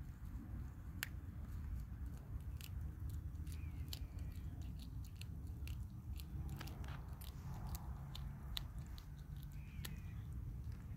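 Domestic cat chewing and crunching on small prey: irregular wet crunches and clicks as it bites through, coming thickest in the middle stretch.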